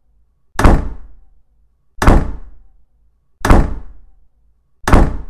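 Heavy thuds repeated at an even pace, about one every second and a half, four in all, each hitting sharply and dying away over about half a second.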